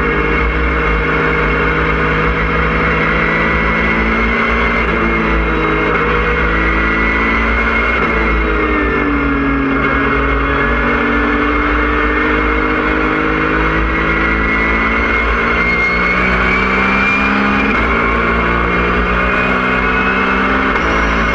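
Porsche 997.1 GT3 Cup car's flat-six engine at racing speed, heard from inside the stripped cabin. Its pitch jumps and slides several times with gear changes and braking, with a thin high whine above it.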